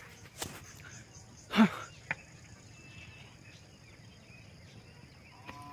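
Insects droning steadily in a grassy field at dusk, a thin high hum over a faint open-air background. About one and a half seconds in comes a single short, loud sound, with a couple of light clicks around it.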